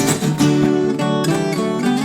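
Background music of acoustic guitar, plucked and strummed.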